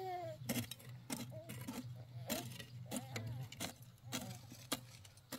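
Irregular sharp taps or knocks, about one to two a second, with short wavering pitched calls between them over a steady low hum.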